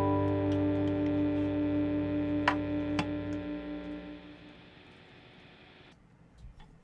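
Background music: a held guitar chord rings on and fades away over about four seconds, leaving near silence. Two sharp clicks come about half a second apart near the middle.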